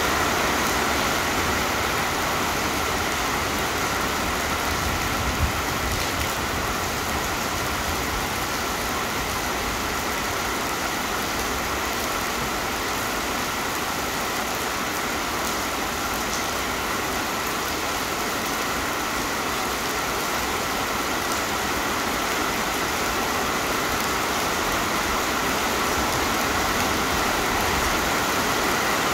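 Heavy rain falling steadily, an even hiss with a faint steady tone underneath and one brief tap about five seconds in.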